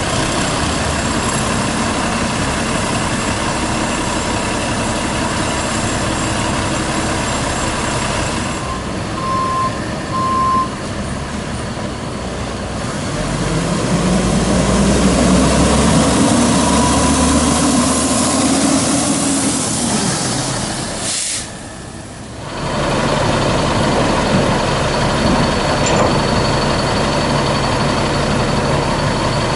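Peterbilt 310 garbage truck's diesel engine idling, with two short beeps about a third of the way in. About halfway through the engine revs up as the truck drives in, ending in a hiss of air brakes, then it settles back to a steady idle.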